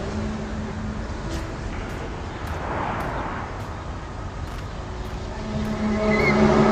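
Low droning hum of several steady tones over a rushing background, fading out just after the start and swelling back in near the end: the kind of drawn-out sky 'trumpet' sound heard in these recordings.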